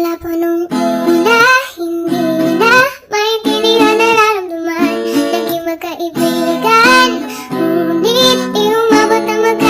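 Background music: a song with a high singing voice over an instrumental accompaniment.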